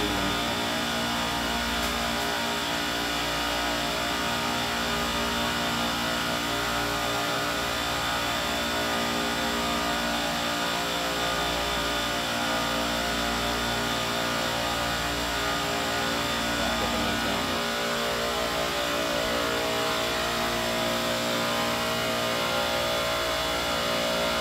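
Compressors of a supermarket-style refrigeration rack running after start-up, a steady machine hum made of several held tones.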